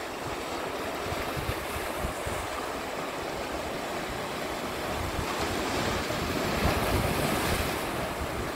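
Sea surf washing over a rocky shoreline, swelling louder about two-thirds of the way through as a wave comes in, with wind buffeting the microphone.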